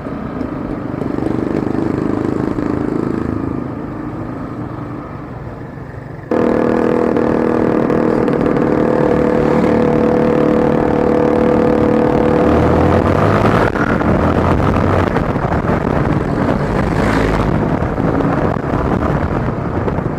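Motorcycle engine running. About six seconds in, the sound cuts abruptly to a louder, steadier engine note, which changes again near fourteen seconds.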